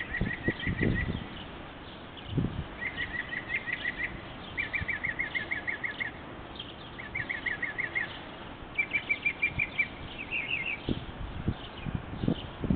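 Northern mockingbird singing: about six short phrases, each a quick run of repeated notes lasting about a second, with short pauses between them. The last phrase is pitched higher than the rest. Low thumps sound near the start and again near the end.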